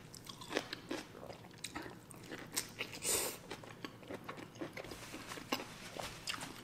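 Close-miked chewing and wet mouth sounds of someone eating a mouthful of spicy instant noodles, with many small clicks and one louder, noisier crackle about three seconds in.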